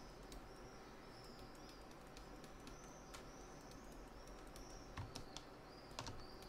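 Faint small-bird chirping, repeated short chirps about every half second, with a few light computer mouse and keyboard clicks scattered through.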